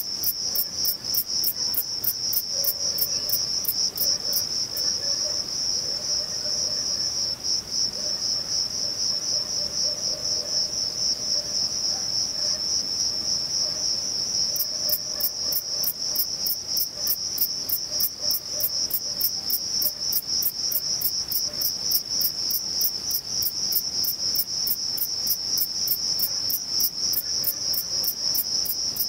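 Male Thyreonotus corsicus bush cricket stridulating, rubbing its reduced wings together in a steady, rapidly pulsed high-pitched song that does not break.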